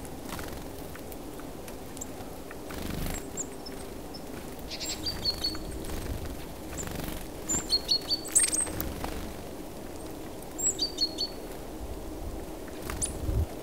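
Small songbirds calling: short, high chirps in a few quick clusters, loudest about eight seconds in, over steady low background noise.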